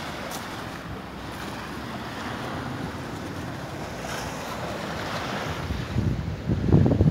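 Atlantic surf washing up a sandy cove and breaking against granite rocks: a steady rushing noise. In the last second or so, gusts of wind buffet the microphone, louder than the surf.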